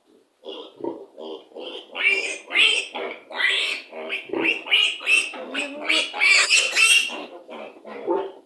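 Piglets squealing: short grunts at first, then a run of loud, shrill, repeated squeals for about five seconds, dropping back to lower grunts near the end. This is the distress squealing of piglets being handled for their multivitamin dose.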